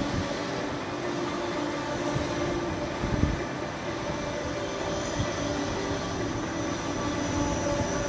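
Amusement ride running: a steady mechanical hum and rush from the ride in motion, with low rumbling gusts of wind on the microphone near the start and again about three seconds in.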